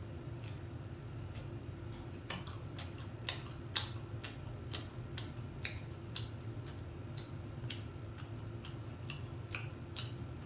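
Eating sounds: a string of irregular, sharp light clicks and taps, about one or two a second, over a steady low hum.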